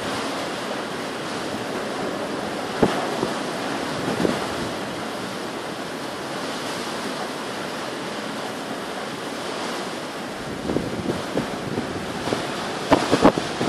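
Strong wind blowing steadily through a snowstorm, with sharp bumps of wind on the microphone about three and four seconds in and a cluster of louder gusts buffeting it near the end.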